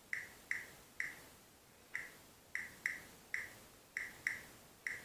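About ten short, sharp clicks at an uneven pace, each with a brief ringing tail.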